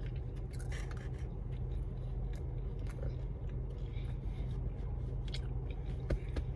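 A person chewing a mouthful of loaded fries close to the microphone: scattered small wet clicks and smacks over a steady low hum.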